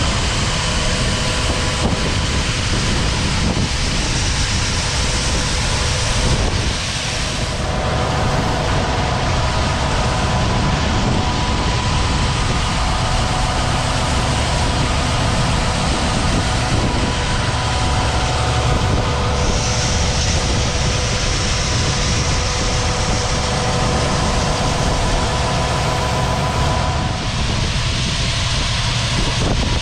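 Fendt Ideal 8 combine harvester running while harvesting soybeans: a steady drone of engine and threshing machinery with several steady whining tones over it.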